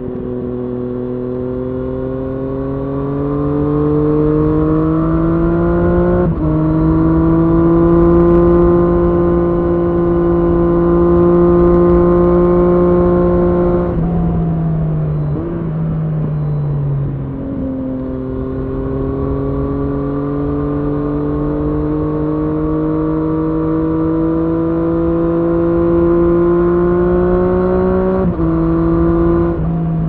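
Triumph Street Triple S inline three-cylinder engine through an SC Project SC1-R slip-on exhaust with the dB-killer fitted, pulling under load: the revs climb, drop sharply with an upshift about six seconds in, hold steady, fall back as the bike slows around the middle, then climb again to a second upshift near the end. A low wind rush runs underneath.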